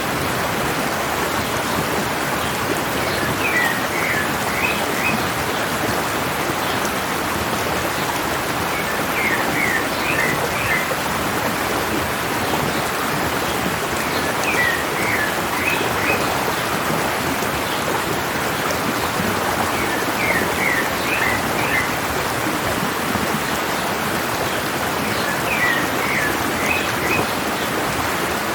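Stream water running down a mountainside in a steady rush, with a bird singing a short phrase of several quick notes five times, about every five or six seconds.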